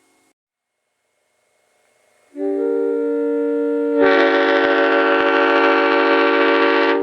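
Nathan Airchime M5 five-chime scallop-base train air horn blowing a steady chord. It comes in about two seconds in, gets louder and brighter about four seconds in, and cuts off sharply at the end. Its owners say the horn is in good shape but badly needs a tuning job.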